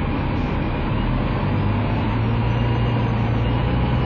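Engine of a stationary ADS-class three-axle double-decker bus idling with a steady low hum that strengthens about a second in.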